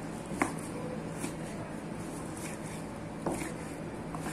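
A long knife cutting through raw pork onto a plastic cutting board: a few knocks of the blade on the board, the sharpest about half a second in and another just after three seconds, over a steady low hum.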